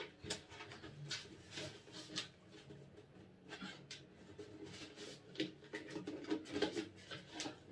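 White hard-plastic storage baskets being handled and pulled apart from a nested stack: faint, scattered scrapes, taps and clicks of plastic on plastic.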